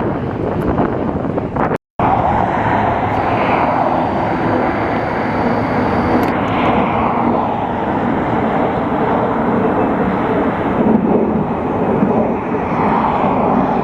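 Airliner jet engines heard from the ground as the plane flies over: a loud, steady rush of engine noise, broken by a brief gap about two seconds in.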